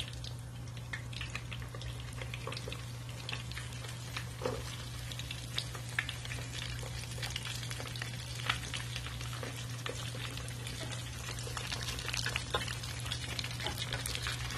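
Cornstarch-coated chicken wings frying in hot coconut oil in a small pan: steady sizzling with many scattered crackles and pops.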